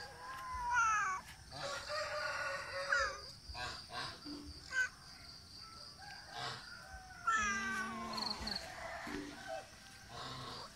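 A cat meowing repeatedly, several drawn-out calls that fall in pitch between shorter ones.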